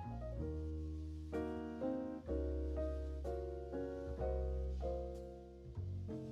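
Background piano music: chords struck every half second to a second and fading, over held deep bass notes.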